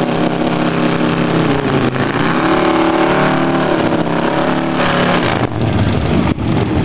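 Motorcycle V-twin engines idling and revving, the pitch climbing and falling back in the middle; a little after five seconds the sound turns rougher as a second bike comes alongside.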